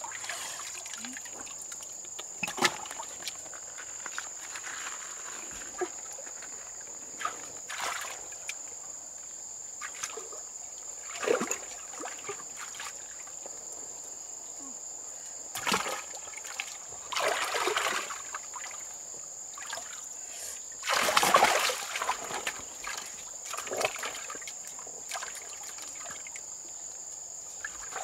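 Water splashing and sloshing in shallow water, in separate bursts a few seconds apart, the loudest a little past two-thirds of the way through, over a steady high-pitched hiss.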